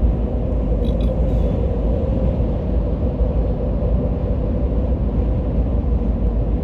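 Steady road noise of a car cruising on the highway, heard from inside the cabin: a constant low rumble of tyres and engine, with a few faint ticks about a second in.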